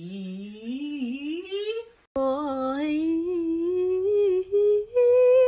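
Wordless solo singing in two short phone clips. First a man's voice slides slowly up in pitch on one long note and breaks off about two seconds in. Then a woman sings held notes that climb to a higher sustained note near the end.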